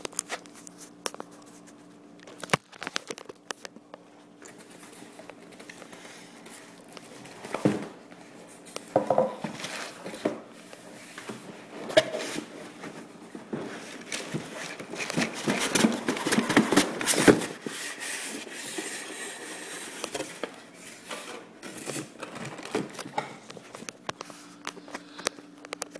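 Plastic packaging bags crinkling and a cardboard box being handled, with scattered clicks and knocks as parts are unpacked. The rustling is busiest about two thirds of the way through.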